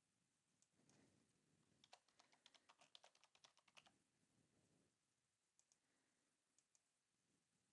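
Faint computer keyboard typing: a quick run of about a dozen keystrokes over about two seconds. A few separate clicks come before and after it.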